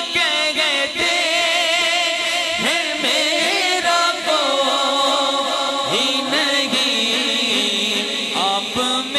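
A male naat reciter singing a naat in Urdu through a microphone, drawing out long held notes with a wavering vibrato and sliding pitch. A second male voice sings backing on a second microphone underneath.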